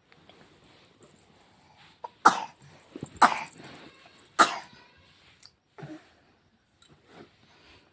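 Coughing: three loud coughs about a second apart, then two softer ones.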